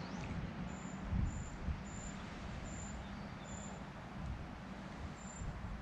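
Wind buffeting the microphone: a steady rushing hiss with low rumbles and a couple of dull thumps. A faint, short, high peep repeats half a dozen times, roughly once every half second to a second.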